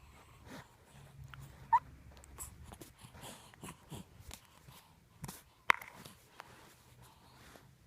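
A two-month-old baby's small grunts, squeaks and breathing, with a brief high squeak near two seconds in and a sharp click a little before six seconds.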